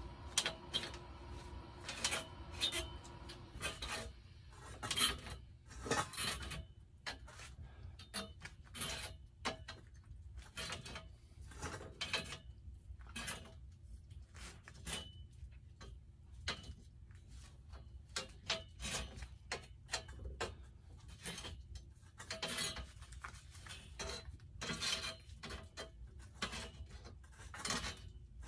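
Irregular light metal clinks and taps, roughly one to two a second, from a slotted steel strip being bent by hand into a ring. The loudest clink comes about five seconds in.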